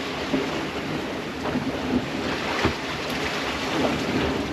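Wind buffeting the microphone over the steady wash of waves and water around a small sailboat under sail.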